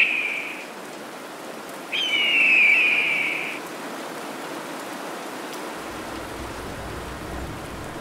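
An African elephant trumpeting: a short blast at the start, then a longer call about two seconds in that falls slightly in pitch, over a steady rain-like hiss.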